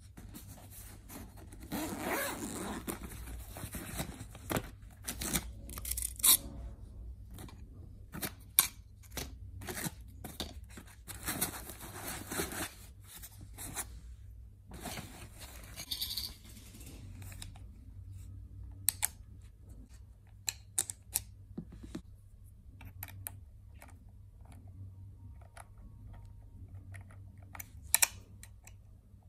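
Handling sounds of unpacking a mini cordless angle grinder kit. A zipper on a canvas tool bag is drawn open in two long rasping pulls with rustling, then come scattered sharp clicks and taps as the plastic and metal parts are picked up and fitted.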